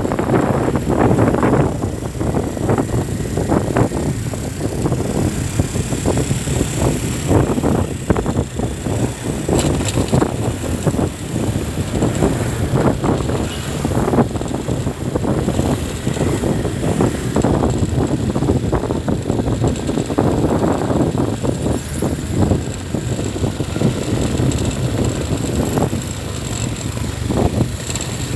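Road traffic noise: a continuous, uneven rumble of passing vehicles.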